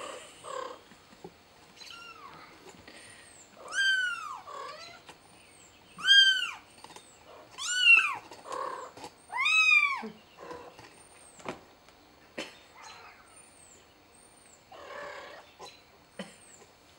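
Kitten meowing for help, a series of high, thin meows that rise and then fall in pitch, the loudest four coming about every two seconds in the middle, with softer ones around them. These are calls to be helped down from the plant pot it has climbed into.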